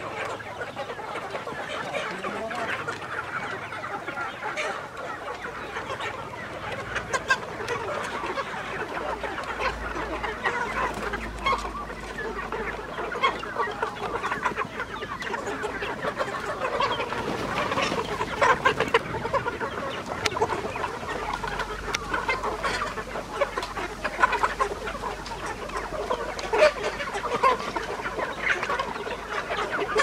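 A large flock of free-range native village chickens clucking and chattering continuously, many birds calling over one another, with scattered louder squawks.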